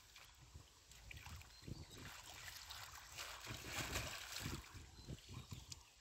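Hands sloshing and splashing in shallow muddy water, in irregular bursts, louder for a stretch around four seconds in.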